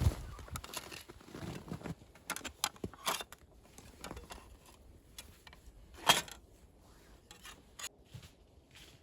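Scattered crunches, rustles and snaps of something being handled or stepped on, with one louder sharp snap about six seconds in.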